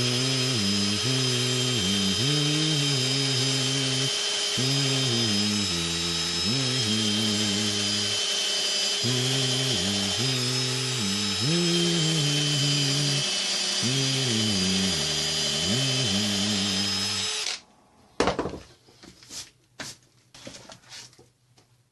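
Power drill with a small bit boring a fuse hole through a thick paper book; the motor's pitch sags and recovers again and again as the bit bites into the pages, then the drill stops about three quarters of the way in. A few light knocks and handling sounds follow.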